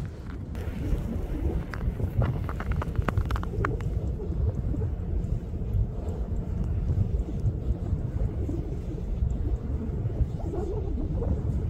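Wind buffeting the microphone: a steady low rumble, with a few light clicks about two to four seconds in.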